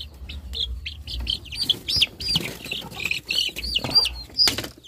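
A brood of three-week-old chicks peeping rapidly, many short high calls overlapping, as they are caught by hand. A couple of sharp knocks sound near the end.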